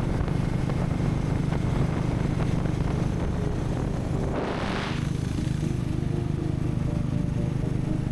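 Motorcycle engines running steadily at highway speed with wind rushing over the microphone, from Harley-Davidson X440 single-cylinder bikes riding side by side. A brief swell of rushing noise comes about four and a half seconds in.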